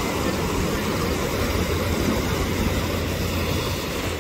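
Steady rushing roar of a flooded river's fast, turbulent water, with a low rumble beneath it.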